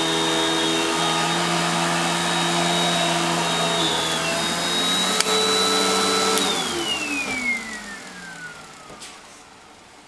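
Household vacuum cleaner running steadily with a high motor whine. About six and a half seconds in, the motor winds down, its whine falling in pitch as it fades.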